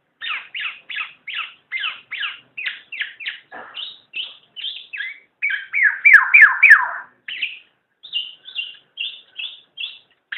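Black-naped oriole (kepodang) calling in a fast series of short, downward-slurred notes, about three or four a second. A few notes about six seconds in are louder and sweep lower.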